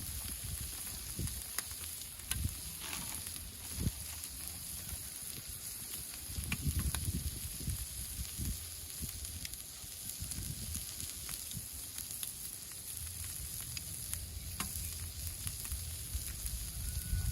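Butter sizzling steadily in a pan that is too hot, the butter browning, with a few light clicks along the way.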